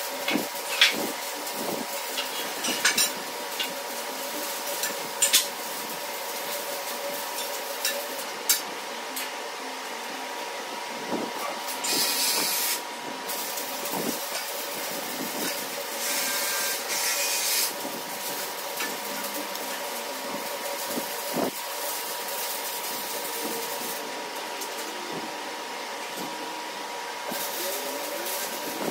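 Steel boring bar being handled and slid into the bores of a CAT 637 hitch: scattered metal clanks and knocks, two spells of hissing about 12 and 17 seconds in, over a steady machine hum.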